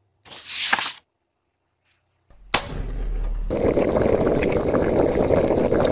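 A short swish under a second in, then silence, then a cartoon cooking sound effect of a lidded pot over a flame that starts suddenly and goes on steadily, bubbling and crackling.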